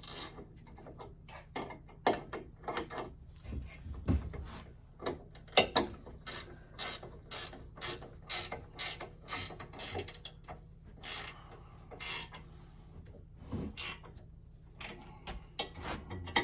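Chainsaw being fastened into an Alaska chainsaw mill's bar clamps: a run of sharp, irregular metallic clicks and knocks from tools and clamp hardware.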